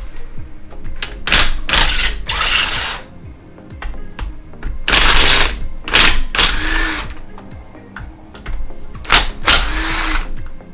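Power tool, most likely an impact wrench, run in three bursts of one to two seconds each while breaking fasteners loose on a manual transmission. The second and third bursts end with a rising-then-falling whine.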